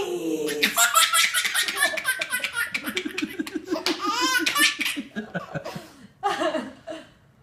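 Laughter in quick, rhythmic pulses, with high-pitched stretches among it; it dies away about six seconds in.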